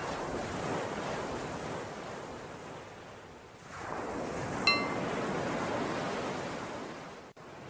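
Recorded ocean waves washing in, two swells one after the other. About four and a half seconds in, a bell is struck once and rings briefly: the cue to switch between breathing in and breathing out.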